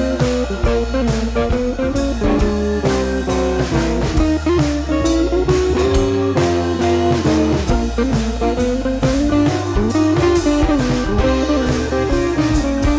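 Background music: a guitar-led blues-rock instrumental with a steady drum beat.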